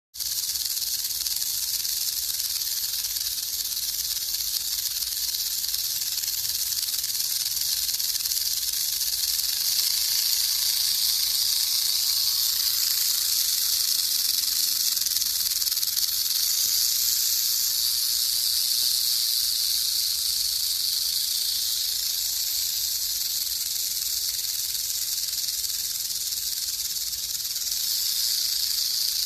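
Diamondback rattlesnake shaking its raised tail rattle: a continuous high buzzing hiss that holds steady without a break, the snake's defensive warning.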